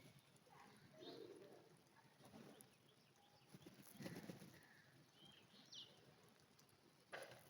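Faint sounds of pigeons at a feeding spot, with two short high chirps a little past halfway and a soft knock about four seconds in.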